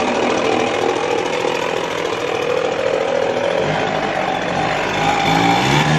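Petrol backpack leaf blower's engine running steadily. Guitar music comes in about halfway through.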